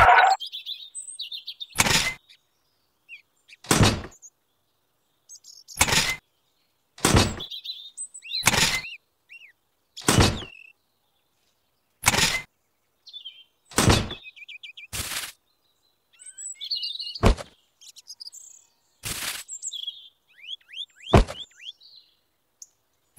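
About a dozen sharp knocks and clunks, one every second or two, as metal tubes and small boxes are set down by hand into a plastic toy tractor trailer. Birds chirp faintly between the knocks.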